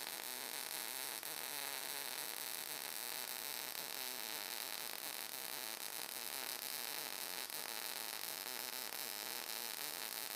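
MIG welding arc from a Cebora Pocket Pulse synergic welder crackling and hissing steadily as a bead is run on 1 mm plate with 0.8 mm wire under argon/CO2 shielding gas.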